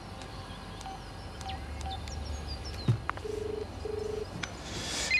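A telephone's double ring: two short, identical low buzzing tones in quick succession about three seconds in. Faint bird chirps and a sharp click come before it.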